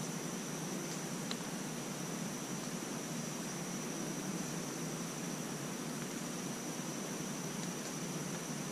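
Steady background hiss of a quiet woodland, with a constant thin high tone over it and one faint tick about a second in.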